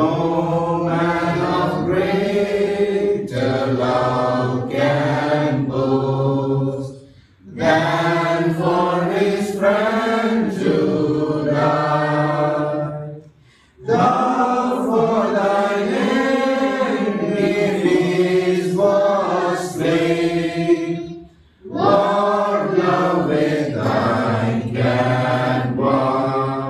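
A congregation singing a hymn unaccompanied, in four phrases several seconds long with brief breaks between them.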